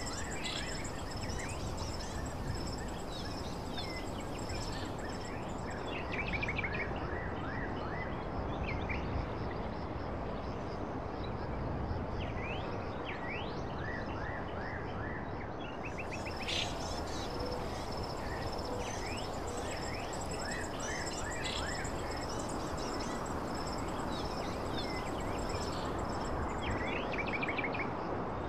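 Outdoor ambience: a steady rumble of noise with small birds chirping and trilling on and off throughout, over a faint steady high-pitched whine.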